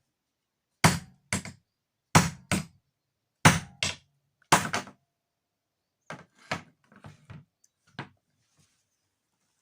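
Hammer blows, mostly in pairs: five loud double strikes in the first half, then a run of lighter taps.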